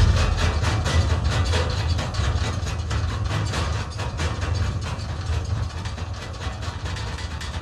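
Rapid mechanical clicking, several clicks a second, over a low steady hum, slowly fading out: machine sounds from field recordings, worked into an electronic track.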